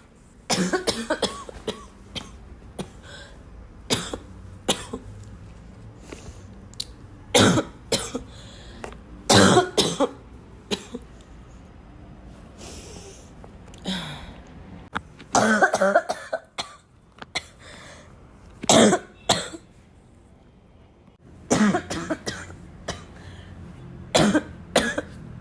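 A person coughing repeatedly, in short bouts of one to three sharp coughs every few seconds, with quieter breathing gaps between.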